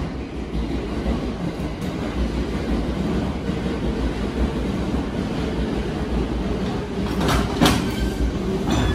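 JR 209 series electric train creeping slowly up to a standing set to couple, with a steady low rumble of its wheels and motors. A few short, sharp rail noises come near the end.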